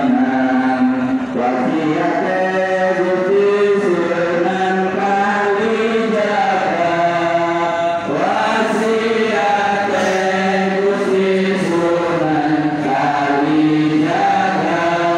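A group of men chanting together in an Islamic devotional chant, voices holding long drawn-out notes that step up and down in pitch.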